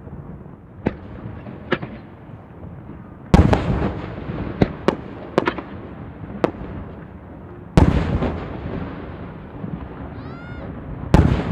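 Aerial firework shells bursting: three deep booms with ringing tails, about three, seven and a half and eleven seconds in, with lighter pops about a second in and sharp crackles after the first big boom.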